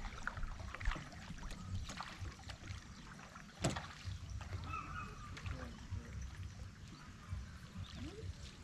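Paddle strokes and water splashing around a small boat made of halved plastic drums being paddled, over a low rumble. A sharp knock comes a little before halfway.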